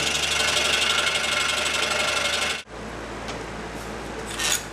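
Scroll saw cutting through a stack of boards, its sound sped up into a dense, rapid buzz that cuts off suddenly about two and a half seconds in. After that the saw runs at normal speed with a quieter steady hum, and there is one sharp clack near the end.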